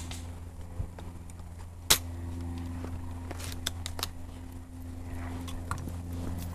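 An airsoft sniper rifle fires once with a sharp crack about two seconds in, followed by lighter clicks and rustling as the rifle is handled, over a steady low hum.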